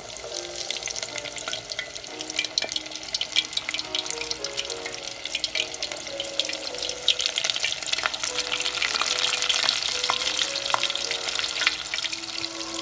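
Breaded shrimp deep-frying in hot oil: a dense, fast crackling sizzle that jumps up right at the start and stays strong, over soft instrumental background music.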